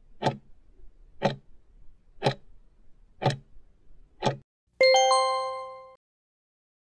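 Countdown timer sound effect: five clock ticks, one a second, then a two-note chime that rings out and fades, marking time up.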